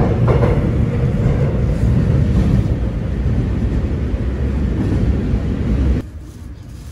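Steady low rumbling noise that cuts off abruptly about six seconds in.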